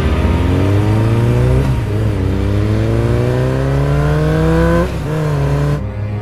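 A motor engine revving up twice, its pitch rising steadily each time before dropping off sharply.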